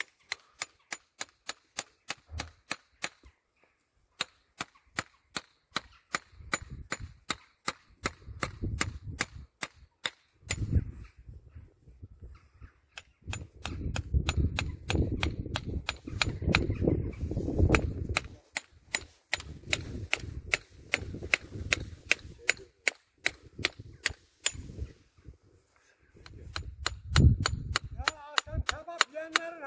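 Farrier's hammer tapping on horseshoe nails in a horse's hoof: sharp metallic taps about three a second, with short pauses, while a horseshoe is being nailed on. A low rumble comes and goes under the taps.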